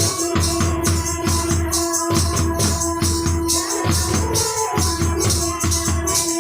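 Music from a Santhali song with a steady, fast beat: bass pulses about three times a second under a held tone and shaker-like percussion.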